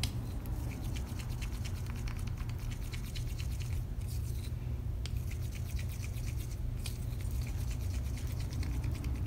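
Wooden craft stick stirring epoxy resin tinted with white pigment in a small plastic cup: a continual run of light scraping ticks against the cup's sides, over a steady low hum.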